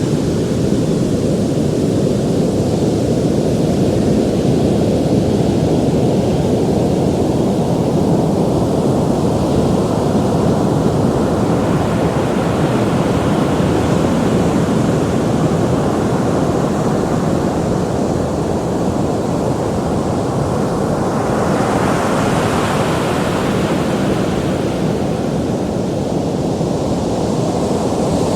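Ocean surf: a steady low rush of waves, with a brighter hiss swelling as a wave breaks and washes in about three quarters of the way through.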